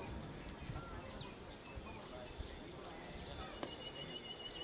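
Open-field ambience: a steady high-pitched insect drone with scattered bird chirps and short sweeping calls. A faint knock comes about three and a half seconds in, and a sharper knock right at the end.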